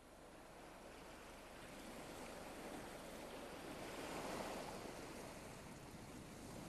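Ocean waves breaking on the shore: a steady wash of surf that swells to its loudest about four seconds in, then eases slightly.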